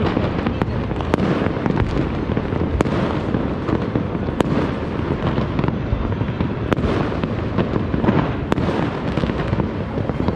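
Fireworks and firecrackers going off all over a city at once. A continuous rumble of distant bangs runs throughout, with many sharp cracks and pops scattered through it at irregular intervals.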